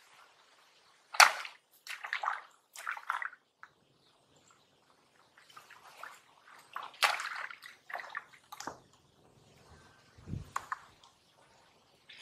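Sharp splashes in shallow muddy water as a long-handled multi-pronged hand spear is stabbed into it and a man wades through it. The loudest splash comes about a second in, more follow over the next two seconds and again around seven to nine seconds in, with a short low thump near the end.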